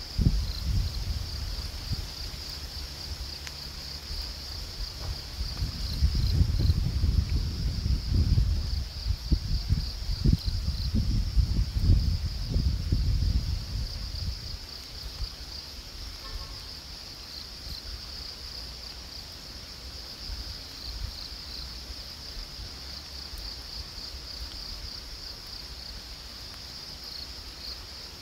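Steady high-pitched chorus of insects, with low rumbling gusts of wind on the microphone through the first half, strongest between about six and fourteen seconds in, then easing.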